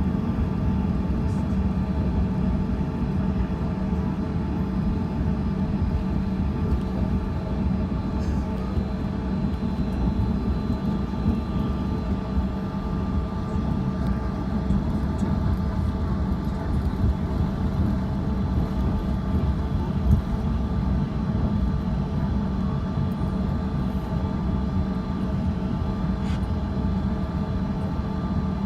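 Cabin noise of a Bombardier CRJ-200 on the ground after landing: its rear-mounted General Electric CF34 turbofans running at idle give a steady low drone with several steady whining tones, unchanging throughout.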